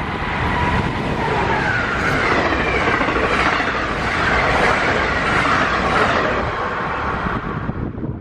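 Electric passenger train passing on the Northeast Corridor main line: loud, continuous rumble and rail noise with a wavering higher whine, cutting away sharply near the end as the train clears.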